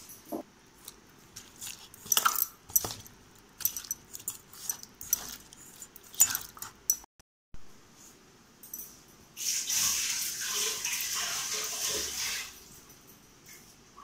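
Raw fish being rubbed with turmeric and salt by hand in a steel pot: scattered wet clicks and knocks against the metal, then about three seconds of steady squishing and rubbing in the later part.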